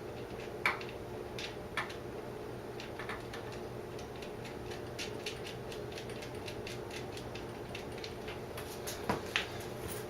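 Small metallic clicks and taps of hand tools working at a motorcycle battery terminal to loosen the positive cable, with a quick run of clicks in the middle and two louder knocks about nine seconds in, over a steady background hum.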